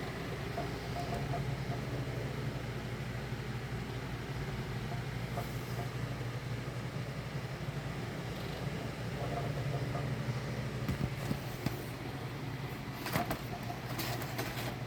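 Steady low hum and whir of running machinery, with a few sharp clicks about thirteen to fourteen seconds in.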